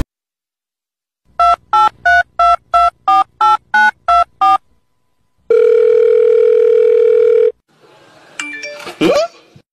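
Telephone keypad dialing beeps, ten short tones at about three a second, then a steady phone tone held for about two seconds. Near the end a baby gives a brief squeal.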